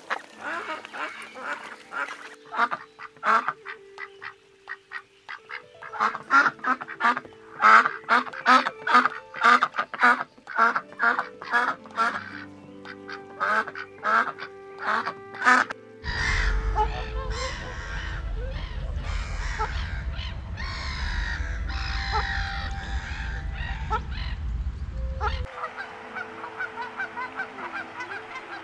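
A run of duck quacks and goose honks, many short calls in quick succession, loudest and densest through the middle. A low rumble sits under the calls for about ten seconds in the second half.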